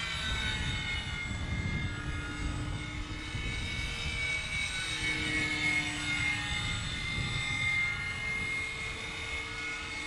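Radio-controlled model plane flying overhead: a steady motor-and-propeller whine whose pitch wavers slightly as it moves about, over wind buffeting the microphone.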